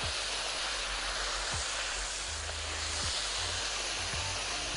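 Breaded beef cutlets frying in a pan of hot oil: the oil sizzles in a steady hiss.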